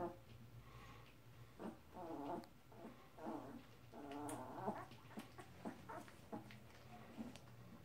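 Young puppies whimpering faintly: three short, squeaky whimpers about two, three and four seconds in, the last one longest, with small scuffling clicks as two of them wrestle on the bedding.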